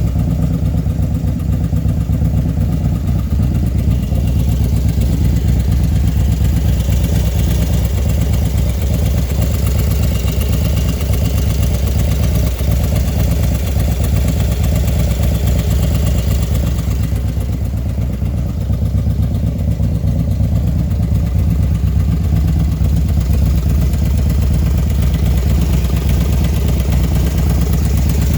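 Small engine fitted with a 110 kit idling steadily with a rapid tick running through it, a ticking that shows up only once the engine is hot.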